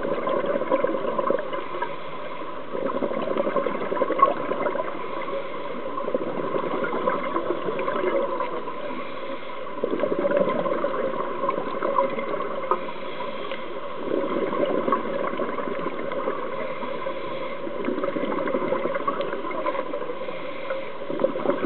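Scuba diver's exhaled bubbles from the regulator, recorded underwater: a gurgling rush of bubbles swells up about every four seconds, with a steady crackling hiss between the breaths.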